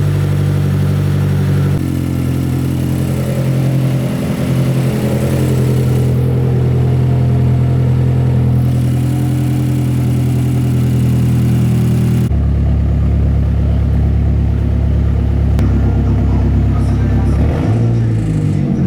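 Mazdaspeed 3's turbocharged 2.3-litre four-cylinder running at a steady idle after an oil catch can install, started to check for leaks and that it sounds right. The tone changes abruptly twice, about two seconds in and around twelve seconds in.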